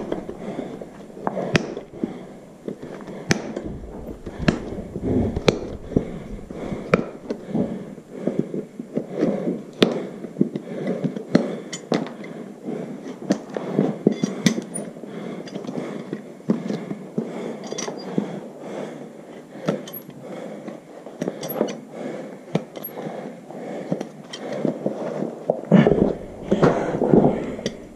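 Hoof nippers cutting through a horse's hoof wall during a trim: an irregular run of sharp snaps and cracks, several a second at times.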